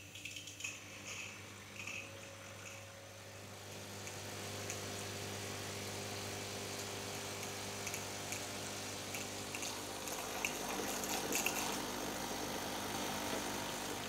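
De'Longhi Motivo pump espresso machine delivering descaling solution: a few clicks as the coffee dial is turned, then the pump hums steadily while water runs out of the frother into a glass bowl. It gets louder, with scattered clicks, about ten to twelve seconds in.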